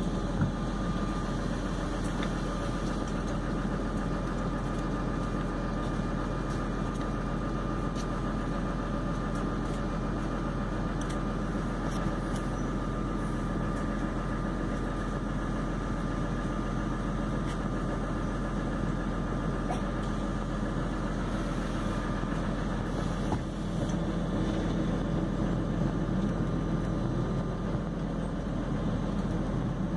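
MAN Lion's City Hybrid city bus running, heard from inside the cabin: a steady low drivetrain hum with a thin steady whine above it, growing slightly louder near the end.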